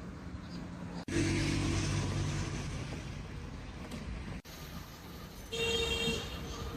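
Street traffic: a motor vehicle running close by, loudest just after the first second. A short steady horn-like tone sounds about five and a half seconds in.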